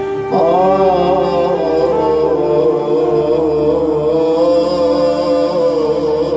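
A man's voice chanting a mournful elegy (na'i), holding a long, wavering, drawn-out note over a steady sustained background drone. The voice comes in about a third of a second in.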